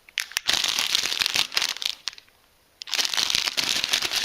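Crinkling and rustling of an MRE accessory pack's plastic packaging as it is opened and its contents pulled out, in two bouts with a short pause between.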